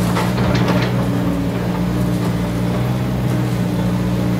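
Kobelco SK200 hydraulic excavator's diesel engine running steadily under load as the boom lifts and swings a loaded bucket of soil out of the canal. A few short clatters in the first second.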